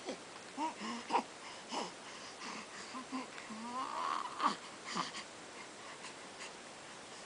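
One-month-old baby making short grunts, squeaks and wheezy breathing noises, with a longer rising squeal about four seconds in; the sounds stop after about five and a half seconds.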